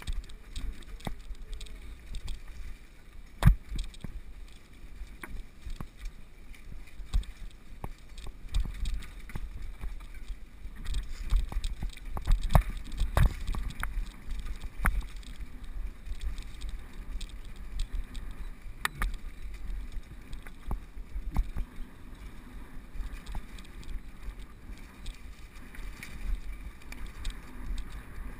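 Mountain bike descending a rocky dirt singletrack, heard from a camera mounted on the bike: a steady low rumble from the tyres and frame, broken by frequent sharp clatters and knocks as it rides over stones and roots. The loudest knock comes about three and a half seconds in, and the ride is roughest around twelve to thirteen seconds.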